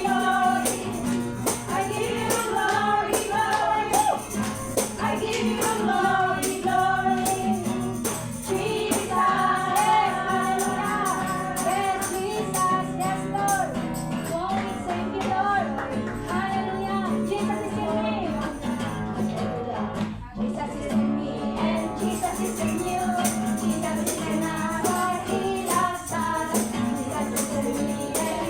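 Worship song sung by voices over instrumental accompaniment, with a shaken jingling percussion instrument such as a tambourine keeping a steady beat.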